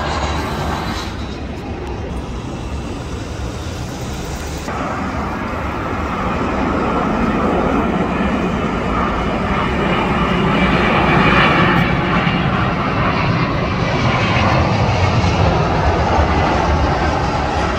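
Jet engines of a Boeing 777 airliner on low final approach to land, passing overhead. The engine noise builds from about five seconds in and is loudest around eleven seconds, then holds steady. There are abrupt changes in the sound in the first five seconds.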